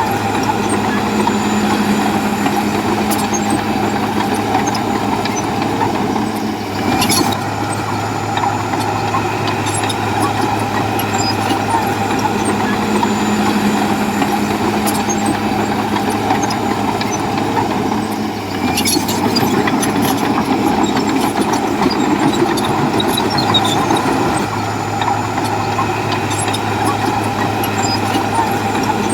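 Bulldozer's heavy diesel engine running steadily under work, its note shifting briefly about seven seconds in and again near nineteen seconds, with a few short knocks.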